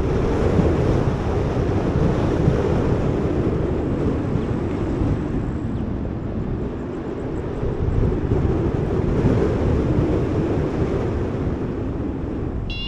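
Airflow rushing over the microphone during paraglider flight: a steady, loud wind noise, heaviest in the low range. Right at the end, a short high electronic beep from the phone's variometer app.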